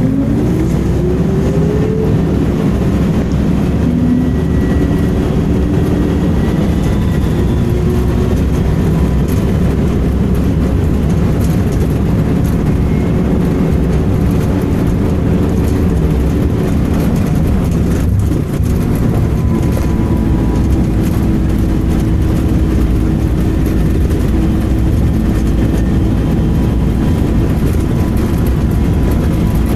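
Volvo B10M bus running under way: its diesel engine revs up in the first couple of seconds, then runs steadily with road noise and a brief drop in level about eighteen seconds in. A faint thin high-pitched screech comes and goes over the engine, heard most in the second half.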